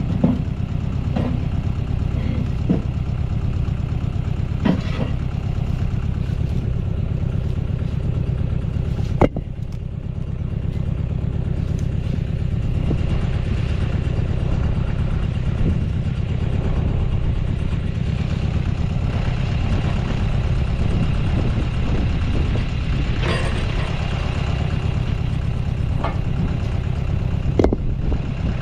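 Tractor engine running steadily, with a few sharp clanks and knocks now and then.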